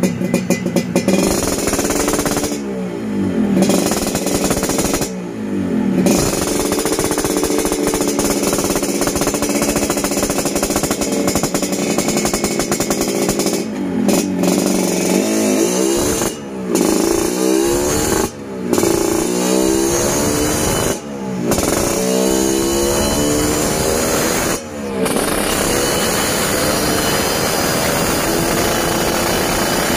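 Tuned Yamaha RX-King 135cc two-stroke single with a kolong kobra expansion-chamber exhaust, running hard on a dyno. The engine note climbs in pitch between several brief dips, then holds steady near the end.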